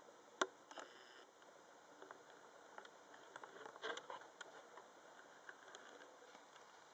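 Faint scattered clicks and scratching of a teddy bear hamster's claws on wire bars as it climbs. One sharper click comes about half a second in, and a cluster of scrabbling falls near the middle.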